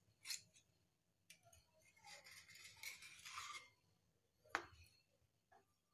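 Faint scratching of a knife blade run around the inside of a small steel bowl to loosen a steamed idli, with a sharp metallic tick about four and a half seconds in.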